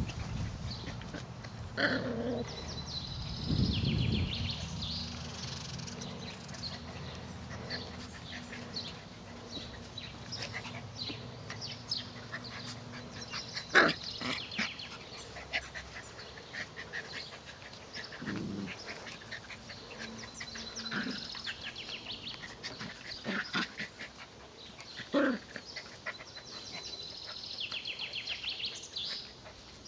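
Puppies playing together, giving scattered short yips and small barks, the loudest about 14 and 25 seconds in.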